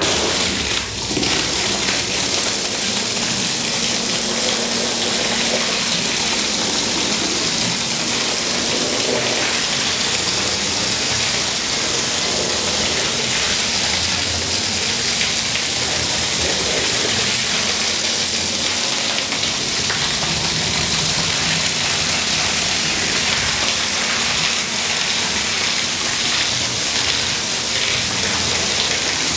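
Water jet from a spray wand hitting a filthy, soaked rug and splashing over the wet wash floor: a steady hiss and splatter that comes on suddenly at the start.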